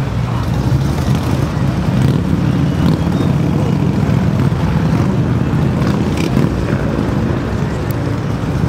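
Motorcycle engines running steadily together.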